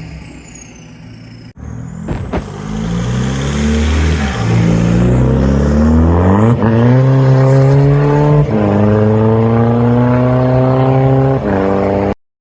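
Car engine accelerating hard through the gears: its pitch climbs, then jumps or drops abruptly at gear changes about six and a half, eight and a half and eleven and a half seconds in. The sound cuts off suddenly near the end.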